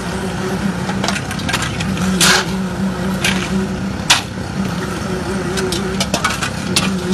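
Steel shovel scraping and scooping wet concrete into a metal pan, with sharp scrapes about a second apart, over the steady drone of an engine.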